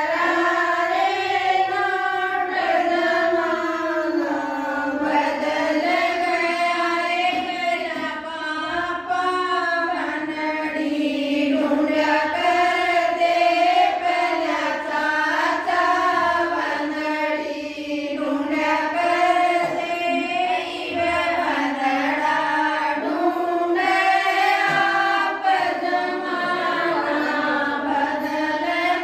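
Women singing a devotional bhajan, one unbroken melody of long, wavering held notes.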